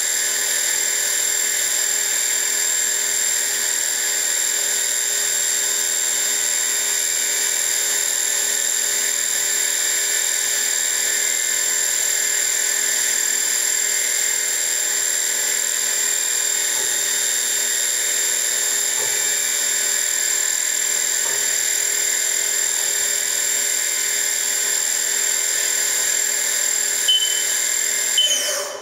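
Haas TM-1 toolroom mill's spindle running free, not cutting: a steady high-pitched whine. Near the end two short keypad beeps sound, and the whine then falls away quickly in pitch as the spindle is stopped.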